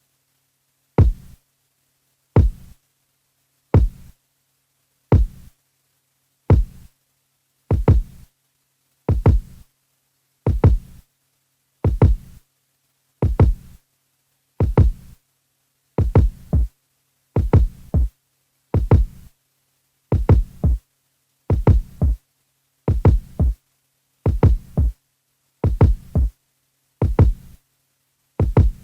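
A single deep electronic kick drum with a falling pitch, played on an Akai Force and repeating at a steady tempo about every second and a half.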